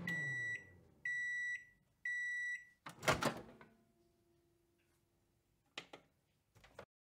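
Microwave oven finishing its cycle: the running hum winds down, then three high beeps about a second apart, then the door clunks open. Two short clicks come near the end.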